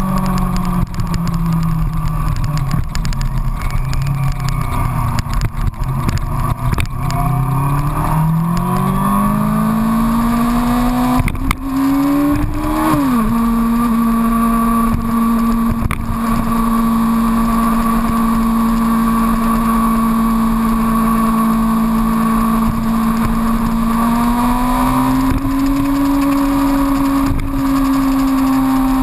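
Yamaha FZX250 Zeal's 250 cc inline-four engine running on the road, heard close from the front fender. Its note falls as the bike slows over the first several seconds, climbs under acceleration, then drops suddenly at an upshift about halfway through. It holds a steady cruise, rising a little again near the end, with a couple of sharp knocks along the way.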